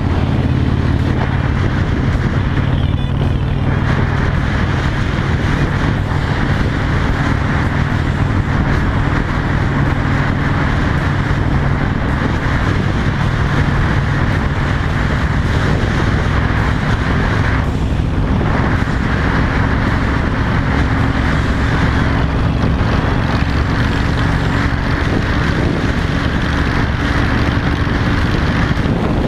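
Honda Shadow 750 V-twin running at road speed through a loud modified exhaust with a fish-tail tip, with wind noise over it. The engine note holds steady and creeps slightly higher in pitch in the second half.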